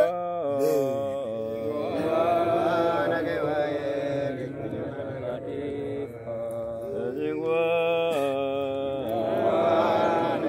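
Voices chanting a prayer, holding long notes with slides between them.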